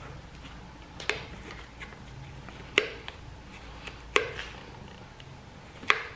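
Four sharp clicks, irregularly spaced, as the plastic tabs and edge of a lawn mower's fabric grass-catcher bag are worked onto its steel wire frame, over a faint steady low hum.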